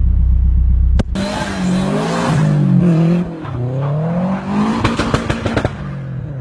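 Subaru boxer flat-four idling with a deep, steady note inside the car, cut off suddenly about a second in. Then an engine revving up and down several times, with a hiss like squealing tyres, and a quick rattle of sharp pops near the end.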